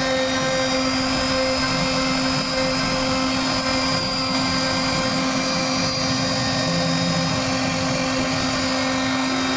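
CNC router spindle driving a small carving bit through a teak door panel: a steady high whine and a lower hum over the hiss of the bit cutting wood.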